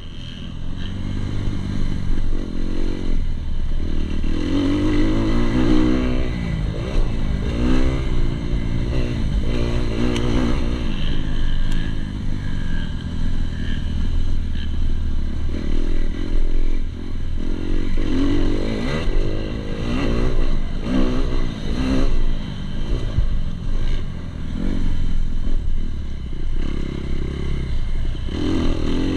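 2019 Kawasaki KX250 motocross bike's four-stroke single-cylinder engine, heard from a camera on the bike, revving hard and easing off again and again as the rider accelerates, shifts and rolls off the throttle, its pitch repeatedly rising and falling.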